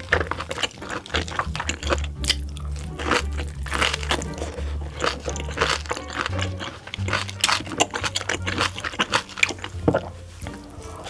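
Close-miked chewing and crunching of food, with many short sharp mouth sounds, over background music with held low notes.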